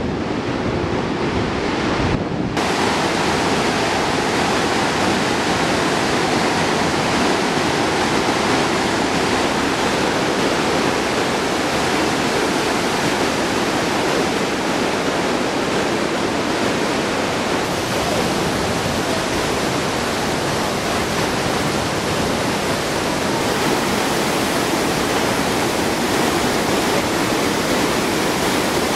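The Yangtze River in flood, its muddy white water churning through narrow rapids: a loud, steady rush.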